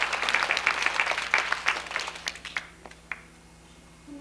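Audience applauding, the clapping thinning out about two and a half seconds in and ending with a few scattered claps.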